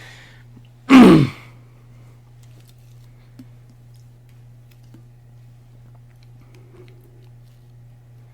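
One short, loud cough-like grunt from a person about a second in, falling in pitch, then faint scattered clicks of a computer keyboard being typed on over a steady low hum.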